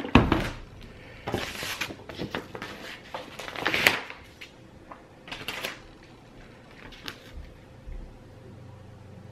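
Cardboard box handled and set down on a table with a sharp knock just after the start, then paper rustling and sliding in irregular bursts as sheets are handled and tucked into the top of the box, growing quieter toward the end.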